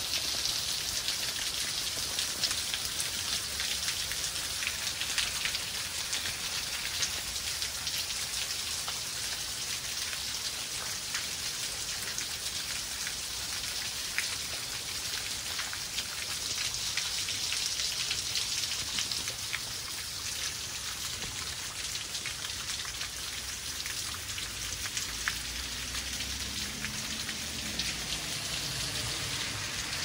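Steady rain, an even hiss with many separate drops ticking through it.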